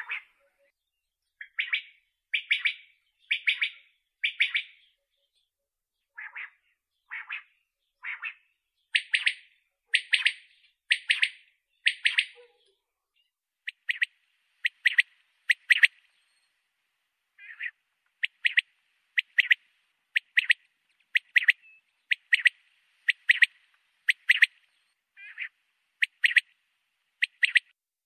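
Common quail calling: short, sharp notes repeated about once a second, in runs of three or four separated by brief pauses.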